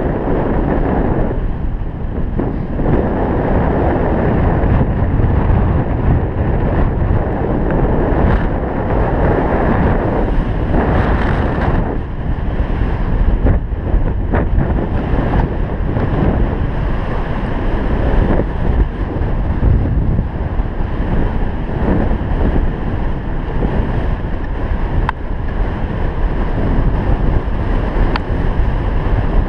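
Strong ridge-top wind buffeting the microphone in a steady rumble while a mountain bike rolls over grass, with a few faint knocks from the bike.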